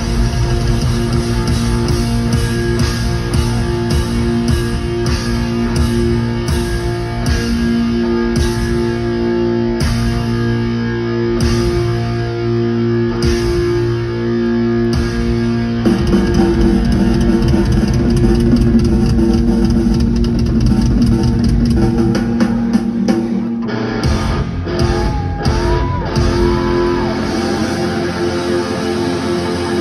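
Loud rock music: electric guitar over bass and drum kit. About halfway through the chords change, and near the end the bass drops out while the guitar bends notes upward.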